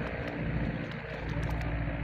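A low, steady engine drone under a hiss of water, with scattered sharp clicks and knocks.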